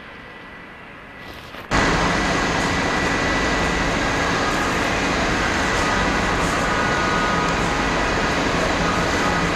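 A Hitachi electric suburban train at the platform with its motors and equipment running: a steady loud rushing rumble with a few held whining tones. It starts abruptly about two seconds in.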